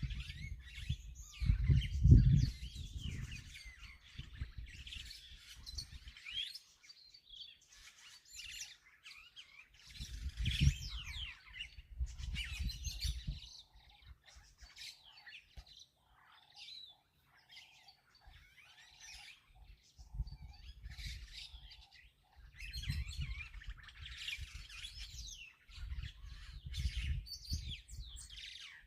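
Many birds chirping and calling over one another, with a run of short, evenly repeated lower notes in the middle. Bursts of low rumble come and go beneath them.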